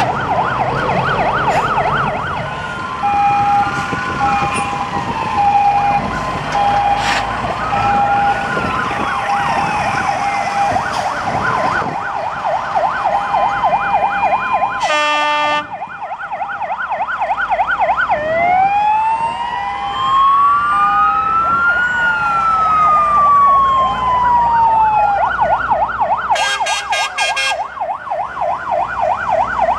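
Several fire engine sirens sounding together as a convoy of fire trucks passes, fast yelping warbles overlapping slow rising-and-falling wails. A short horn blast cuts in about halfway through, and a burst of rapid horn pulses comes near the end.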